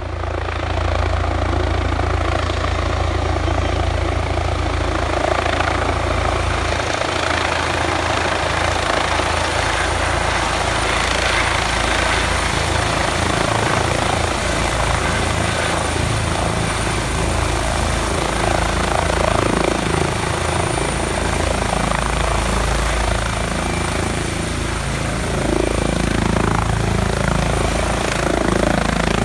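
Airbus Helicopters H135 twin-turbine helicopter landing: steady rotor noise and turbine whine as it descends, hovers low and settles onto its pad near the end. A thin high whine sits over the rotor sound the whole time.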